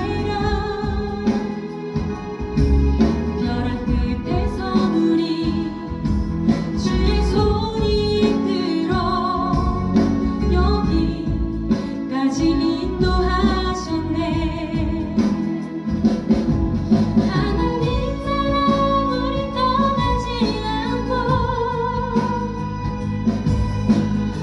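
A young woman singing a Korean Christian worship song into a microphone over instrumental accompaniment, with held notes sung with vibrato.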